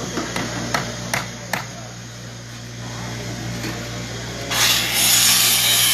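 Carpentry work: about four sharp knocks, like strikes on wood, in the first second and a half over a steady low hum, then about four and a half seconds in a power tool starts and runs with a loud steady rushing noise.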